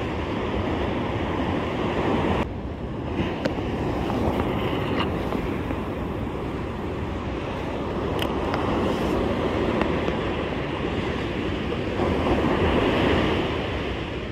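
Surf breaking on a beach and wind buffeting the microphone, a steady rushing noise that swells louder near the end, with a couple of brief clicks.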